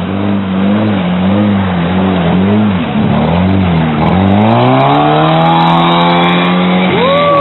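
Lada Niva off-road car's engine working through deep mud, its revs swinging up and down about twice a second, then climbing steadily and holding high from about four seconds in. A brief high-pitched rise and fall comes near the end.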